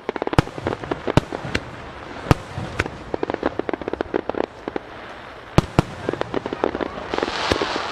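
Aerial fireworks shells bursting: a rapid, irregular crackle of sharp pops with several louder bangs among them, and a dense hissing crackle near the end.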